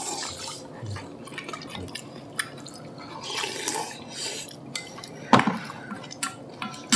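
A spoon working in a bowl of warm broth from acorn-jelly rice soup (mukbap), giving wet liquid and sipping sounds with light clinks of the spoon against the bowl. A sharper clink comes a little after five seconds in.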